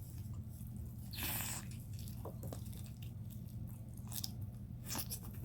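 Close-up chewing and crunching of crispy fried chicken skin, with a loud crunch about a second in and more crackles near the end, over a steady low hum.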